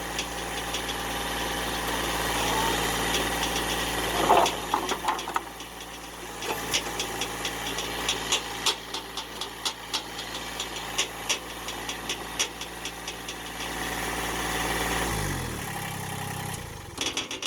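Massey Ferguson GC1715 subcompact tractor's three-cylinder diesel running steadily, with a loud knock about four seconds in and many sharp clicks and rattles after it. About fifteen seconds in the engine note drops and fades away.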